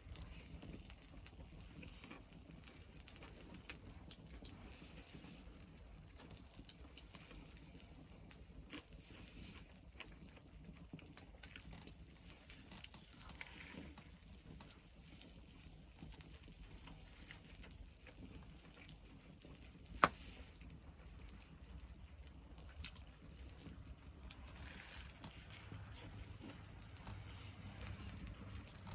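Faint crackling of a small wood fire, with scattered light pops and one sharper pop about two-thirds of the way through.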